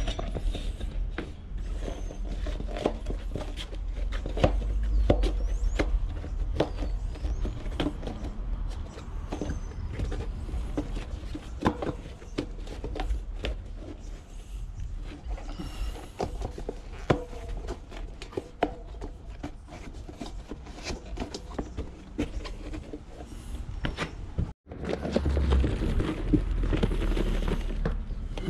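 Irregular handling noise from a tubeless mountain-bike tyre being worked onto its rim: many small clicks and knocks over rubbing and rumble, with a sudden break about three-quarters of the way through.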